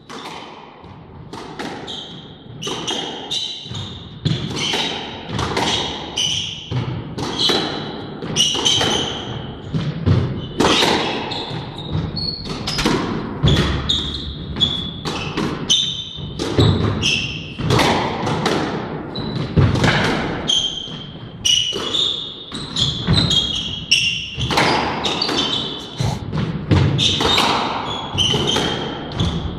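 Squash rally: the ball repeatedly cracking off rackets and thudding against the court walls, with frequent short, high squeaks of court shoes on the wooden floor.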